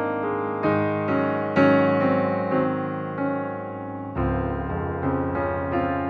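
Slow background piano music, notes struck about once a second and left to ring.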